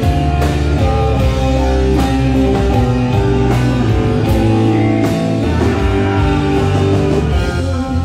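Electric guitar played loud through stage amplifiers at a rock band soundcheck, with held notes over low sustained bass notes and drum hits.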